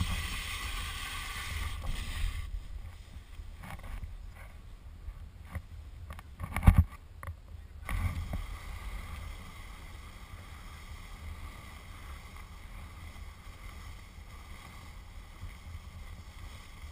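A snowboard sliding over snow, its edge scraping with a bright hiss for the first two seconds or so, then riding on more quietly under a steady low wind rumble on the microphone. A sharp thump about seven seconds in is the loudest sound, with smaller knocks around it.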